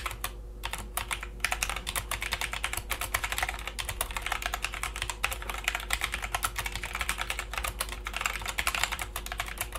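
Fast continuous typing on an SPC Gear GK530 mechanical keyboard with Kailh Brown switches: a quick, irregular run of quiet key clicks, the soft tactile sound of brown switches rather than the loud click of blues.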